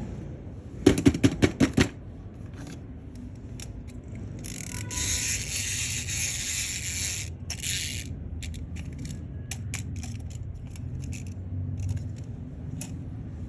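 Hands opening and handling toy packaging: a quick run of about seven sharp clicks or knocks about a second in, then a few seconds of scraping and rustling, followed by scattered small clicks.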